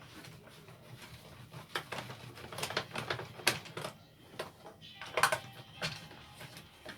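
Irregular small metal clicks and taps, the loudest a short cluster about five seconds in: hand tools and engine parts being handled while a petrol multi tool is taken apart.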